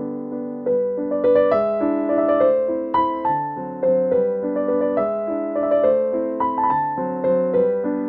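Background piano music: a melody of single struck notes over held chords.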